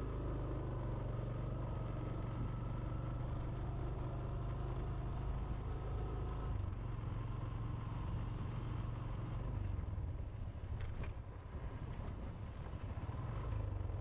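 Small motorbike engine running at a steady cruise, with road and wind noise, easing off slightly for a couple of seconds near the end.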